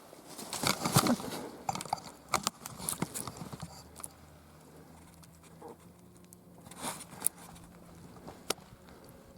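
Footsteps crunching and rustling in dry forest leaves, an irregular cluster of crackling steps in the first few seconds, then a few single crunches near the end.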